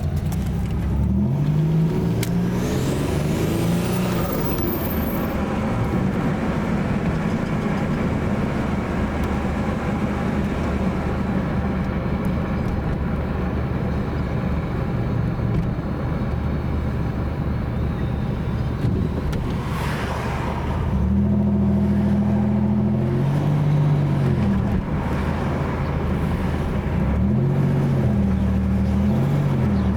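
Buick Grand National's turbocharged V6 being run up against a 3000 rpm stall torque converter, revving several times near the start, about two-thirds through and near the end, enough to spool the turbo a little. A bit of turbo whine sits over the engine note.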